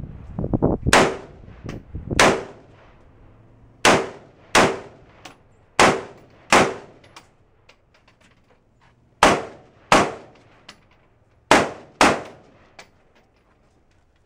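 AR-15-style carbine firing about ten shots, mostly in quick pairs less than a second apart, with faint pings of bullets striking steel targets downrange after the shots.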